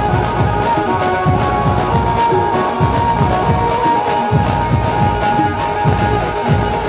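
Loud dance music playing through a procession DJ sound system's horn speakers, with a fast, even beat of about four strokes a second under a held melody line.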